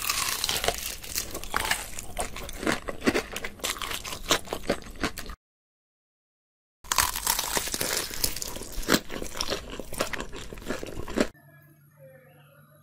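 Crisp breadcrumb crust of deep-fried potato-and-chicken croquette balls crunching and crackling. It comes in two stretches of dense crackle with a short break between, and fades to faint just before the end.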